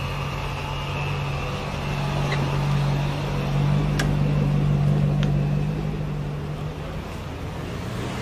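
A motor vehicle running: a steady low engine hum that grows louder through the middle and then eases off. Two short clicks come at about four and five seconds.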